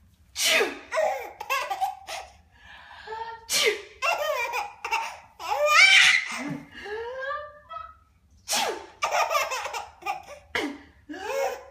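An adult sneezing about three times, each sneeze followed by an eight-month-old baby's bursts of belly laughter and giggles; the loudest, highest laugh comes about halfway through.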